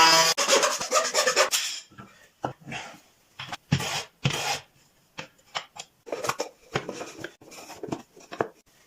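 Irregular scraping strokes of a hand rasp on wood, a few strokes a second with short pauses between runs. Just after the start a loud pitched whine stops.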